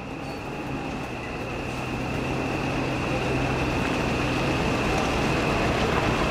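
Mercedes-Benz Actros truck's V8 diesel engine running with a steady low hum as the truck pulls slowly forward, growing gradually louder as it comes closer.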